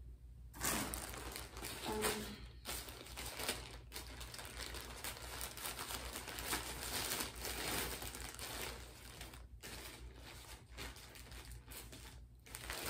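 Packaging crinkling and rustling as it is handled and opened, beginning about half a second in and going on with a few brief pauses.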